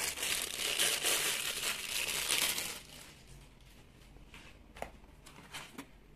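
A clear plastic packing bag crinkling and crackling as it is crumpled by hand for almost three seconds, then a few faint light knocks.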